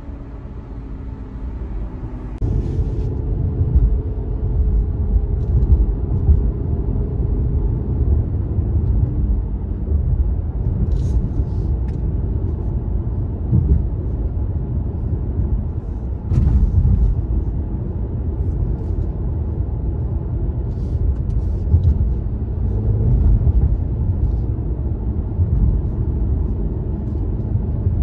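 Mercedes-AMG C43's twin-turbo V6 engine and exhaust heard from inside the cabin while driving. It runs quietly for about two seconds, then picks up under acceleration into a steady, louder low rumble while cruising.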